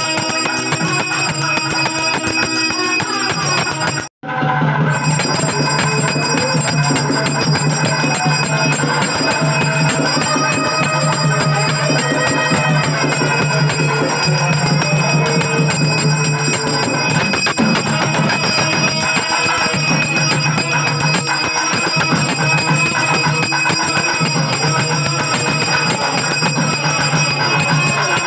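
Devotional music with a bell ringing continuously over it, as at a temple aarti. The sound drops out for an instant about four seconds in.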